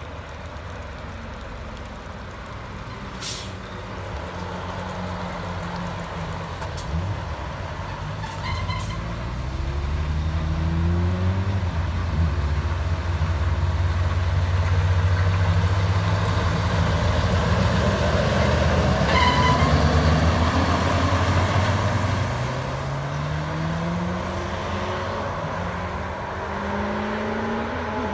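Heavy Scania truck's diesel engine as the tractor unit and low-loader trailer slow through a roundabout, pass close by, then pull away, the engine pitch climbing several times through gear changes. Short hisses of air from the brakes come a few seconds in.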